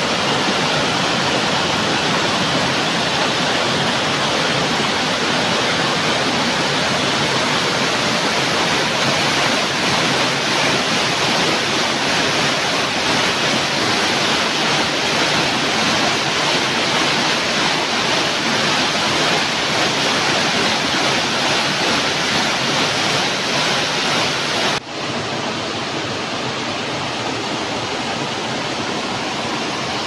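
Waterfall water rushing and splashing over rock cascades, a steady loud roar of white water. About 25 seconds in it breaks off for an instant and carries on a little quieter.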